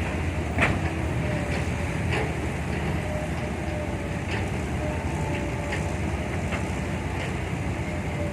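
Kobelco SK120-5 hydraulic excavator's diesel engine running steadily under digging load without bogging down, with a faint steady whine and a few scattered knocks.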